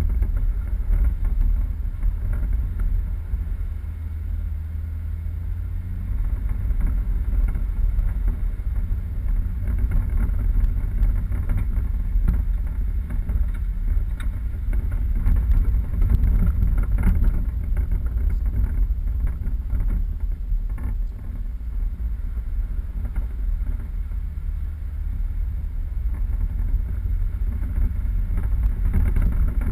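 4x4 vehicle driving off-road: a steady low rumble of engine and running gear.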